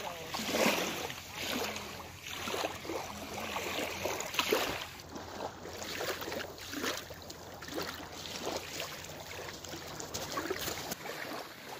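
Small waves lapping on a sandy lake shore, an uneven splashing wash with wind buffeting the microphone.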